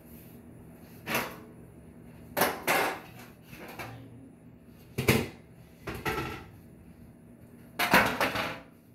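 Kitchen handling sounds: a string of short knocks and rustles, about seven in all and spaced a second or so apart, the loudest near the end.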